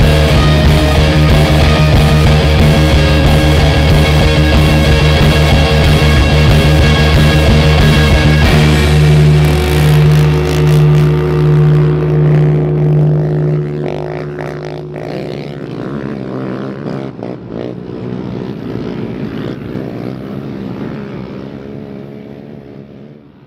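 Background rock music that holds steady for the first third, then thins to a sustained, pulsing low note and fades out near the end.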